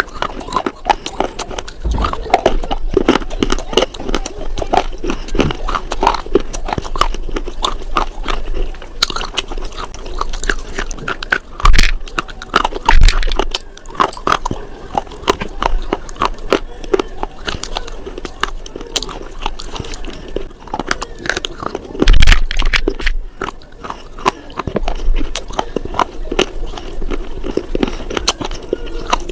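Close-miked crunching and chewing of slate: dense sharp crackles as the pieces are bitten and ground between the teeth, with a few heavy thuds, the loudest about twelve, thirteen and twenty-two seconds in.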